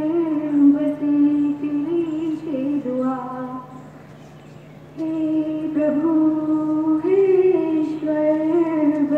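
A girl singing a Gujarati devotional prayer song solo, holding long, slow notes. She breaks off for about a second after the first phrase, then goes on.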